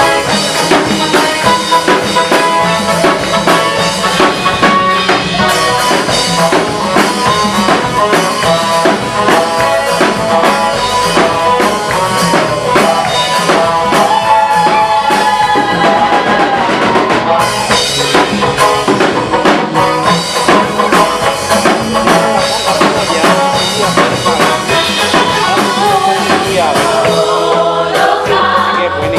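Gospel music with a drum kit and other instruments playing a steady beat.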